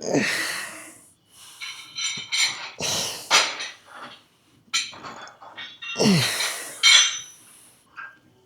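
A weightlifter's hard, forceful breaths and straining grunts during a set, with a few light metal clinks.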